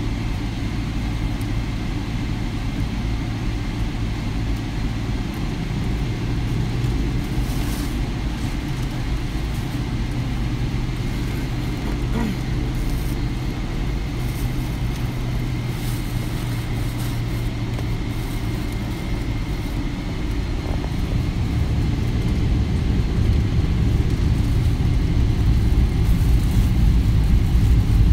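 Boeing 787 Dreamliner cabin noise while taxiing: a steady low rumble with a faint high whine, growing louder over the last several seconds.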